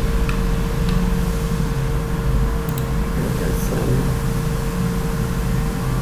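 A steady mechanical hum: a low drone with a constant tone in it, and a few faint clicks over it.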